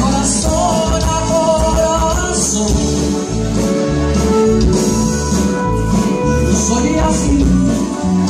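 Tejano band music playing loud, with a steady bass beat, guitar and singing.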